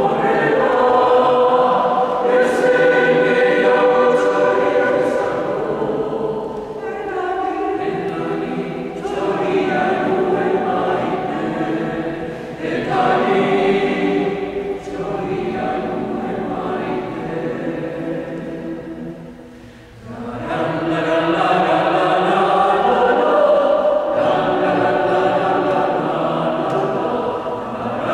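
Mixed choir of men's and women's voices singing unaccompanied in a reverberant church, holding chords in several parts. The singing breaks briefly between phrases about two-thirds of the way through, then resumes.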